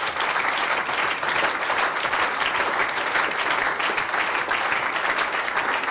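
Large audience of party delegates applauding, a steady, dense clapping in response to a speaker's thanks.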